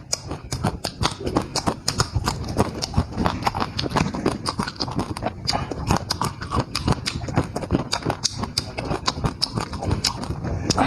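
Rapid, irregular clicks and knocks, several a second, from cooking work at the stove or chopping board.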